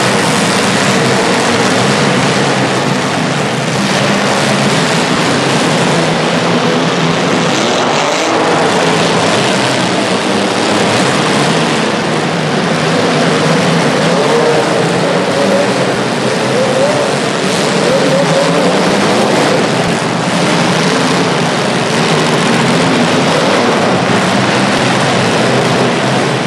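Several small demolition derby cars' engines running and revving together in a loud, continuous din, with the engine pitch wavering up and down.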